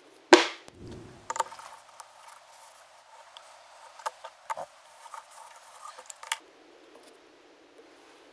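A strip of painter's tape ripped off the roll in one sharp tear, followed by a few light clicks and taps of handling.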